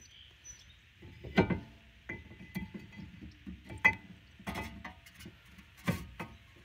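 Metal-on-metal clinks and knocks as a 2020 Dodge Charger's front brake caliper, loaded with new pads, is slid over the new rotor and lined up on its mounting. There are about four sharp clinks, the loudest about a second and a half in and about four seconds in, and some are followed by a short metallic ring.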